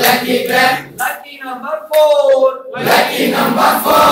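A group of adults chanting and calling out a game song together, with several voices in short phrases and one held sung note about two and a half seconds in.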